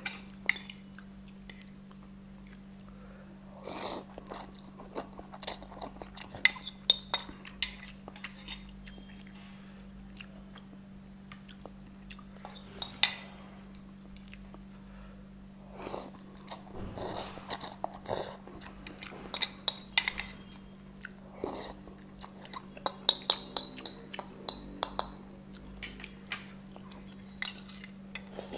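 Close-miked eating: chewing and biting on instant noodles, with scattered sharp clicks of a metal fork and spoon against a ceramic bowl. A steady low hum runs underneath.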